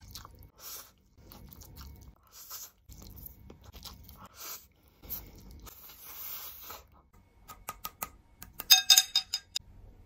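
Close-up eating sounds: wet chewing and slurping of a mouthful of black noodles, with a longer hissing slurp about two-thirds of the way in. A quick run of sharp clicks with a ringing tone comes near the end.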